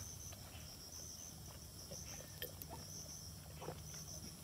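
Insects chirping in a steady, high, pulsing trill, with a few faint clicks.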